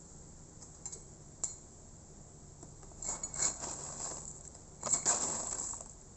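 Handling noise from unboxing a parcel: two short clicks, then two longer rough bursts of handling noise about three and five seconds in.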